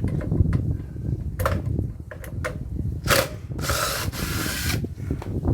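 Hand tools working on a metal floodlight housing while its ballast is taken out: a few sharp clicks and a scraping rasp lasting about a second, about four seconds in, over a low rumble of handling.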